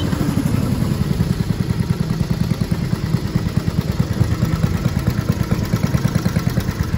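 Small gas engine of a bathtub go-kart running with a fast, even pulse, idling once the kart has stopped.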